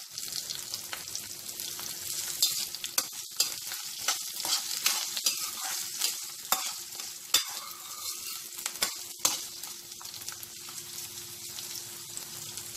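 Chopped onions, curry leaves and cumin seeds sizzling in hot oil in a pan, stirred with a spoon that clicks and scrapes against the pan many times.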